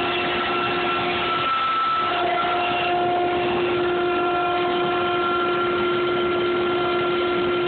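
Table saw ripping a board, the stock driven through by a power feeder's rubber wheels: a steady machine hum with a steady whine over it.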